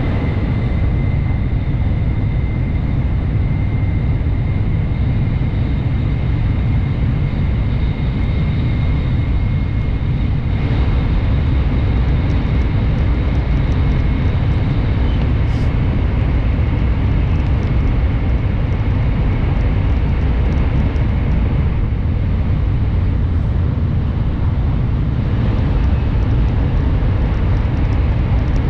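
Shinkansen bullet train running at speed, heard from inside the passenger car: a loud, steady low rumble with a faint high whine over it. The rumble grows slightly louder about ten seconds in as the train runs through a tunnel.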